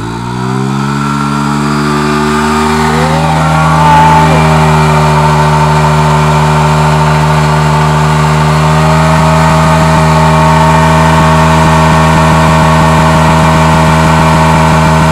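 Hero Splendor's single-cylinder four-stroke engine revved up over the first second and then held at high revs, a steady loud note, while the rear wheel spins against the asphalt in a burnout.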